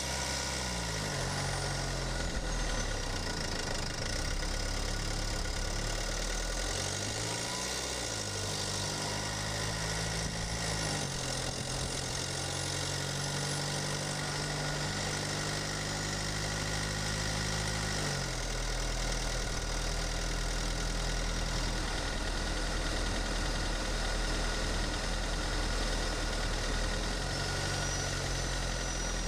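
Mercedes-Benz E250 BlueTec's OM651 four-cylinder twin-turbo diesel running under way, heard from a microphone in the engine bay. Its note rises and falls in pitch several times over the first half, then holds steady.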